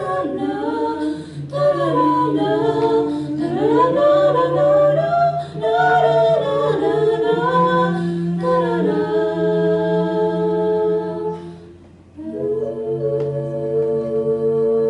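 Small mixed-voice a cappella group singing in close harmony, with several vocal parts moving against each other. About twelve seconds in the voices break off briefly, then come back together on a long held chord.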